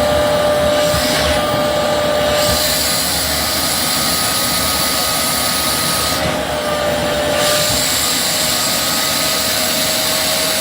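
Steady machine noise: a loud, even rushing with a steady whine through it, like a running motor or blower.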